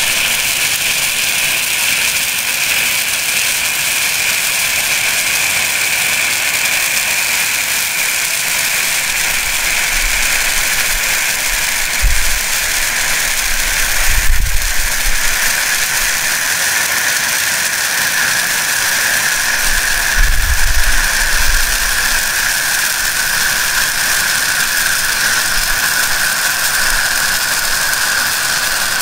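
Red pyrotechnic distress hand flare, nine years past its expiry date, burning with a steady loud hiss whose pitch drops slightly about halfway through. A few low rumbles come and go, the loudest about fourteen seconds in.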